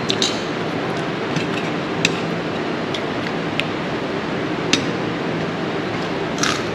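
A handful of short, sharp clinks of dishware, about five spread out with a slightly longer one near the end, over a steady background noise with a faint hum.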